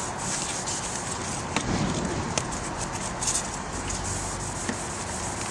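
Hand wet-sanding of an oxidised plastic headlight lens with 1000-grit sandpaper: a few soft, irregular scrubbing strokes over a steady hiss.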